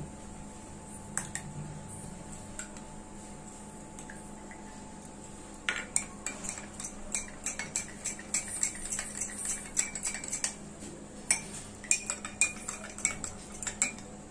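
A spoon stirring rose syrup into milk in glass mugs, clinking rapidly against the glass. The stirring starts about six seconds in, stops briefly, then starts again in the other mug.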